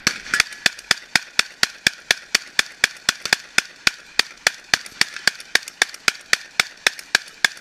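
Fostech Origin 12 semi-automatic 12-gauge shotgun fired as fast as possible from a 30-round drum: an unbroken string of shots, about four a second, emptying the drum.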